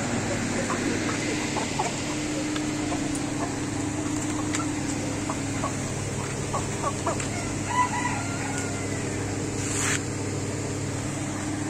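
Chickens clucking in short, scattered calls, with a rooster crowing about eight seconds in, over a steady low hum.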